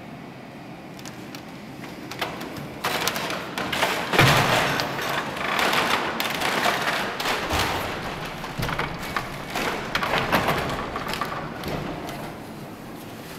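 Irregular thumps and knocks, starting about three seconds in after a steady hiss, coming thick and fast for most of the time and thinning out near the end.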